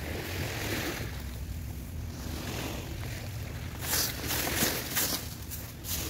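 A stick broom sweeping dry leaves over sand, with a run of louder rustling strokes about four to five seconds in, over steady wind and small waves.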